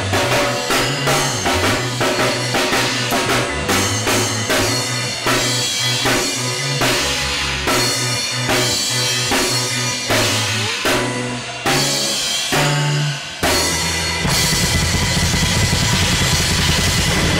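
Rock drum kit played along to a rock recording with a bass line: a steady beat of kick, snare and cymbals. About fourteen seconds in, the separate hits give way to a continuous dense wash.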